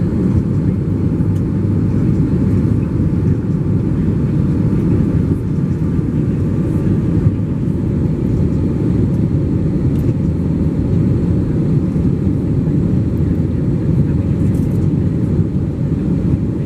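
Airbus A321 cabin noise in flight after take-off: the jet engines and rushing airflow make a steady, low roar inside the cabin by the wing.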